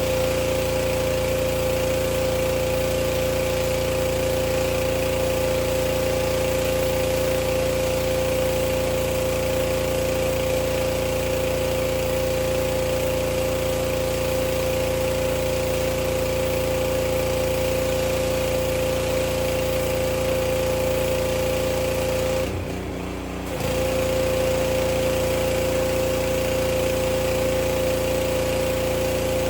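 Gas-engine pressure washer running steadily, its engine's hum and the hiss of the spray blended together. The sound drops briefly about three quarters of the way through, then comes straight back.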